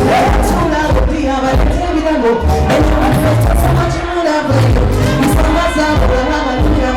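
Loud amplified music with a heavy, pulsing bass beat and a singing voice over it.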